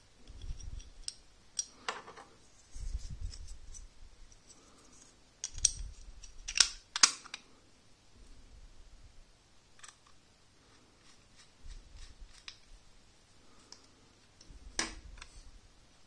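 Sharp clicks and short scrapes from an ORICO M2PJ-C3 aluminium M.2 NVMe SSD enclosure as its circuit-board tray is slid into the housing and the closed case is handled. The loudest are two sharp clicks about seven seconds in, with soft handling bumps and a few lighter clicks around them.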